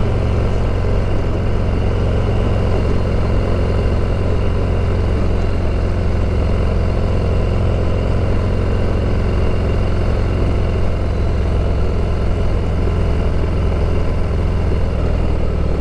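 Harley-Davidson motorcycle's V-twin engine running steadily at an even speed, with no rise or fall in revs.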